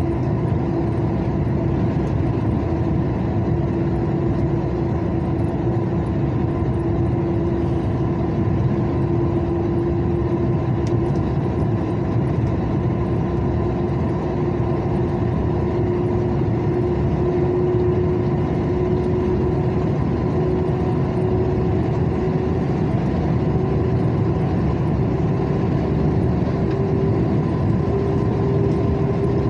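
Car driving along a highway, heard from inside the cabin: steady engine and tyre-on-asphalt rumble, with a hum that slowly rises in pitch.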